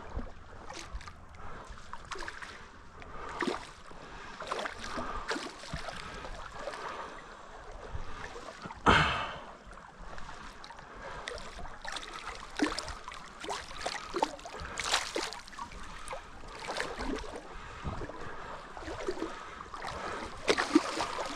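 Water splashing and sloshing in a shallow creek, in irregular bursts over a running stream, with one louder splash about nine seconds in.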